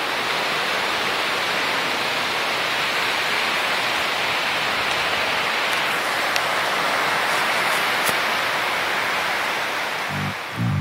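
Steady rushing hiss of wind through the trees, even and unbroken. Guitar music begins to come in near the end.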